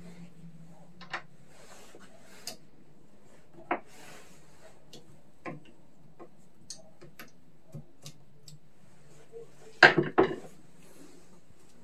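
Scattered clicks and light knocks of tools and small metal parts being handled while taking a lawn mower apart, with a quick cluster of louder knocks about ten seconds in.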